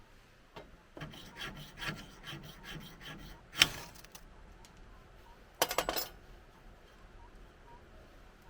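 Rasping scrapes of a hand tool: a quick run of strokes for a couple of seconds, then one sharp, loud scrape, and a short burst of scrapes a couple of seconds later.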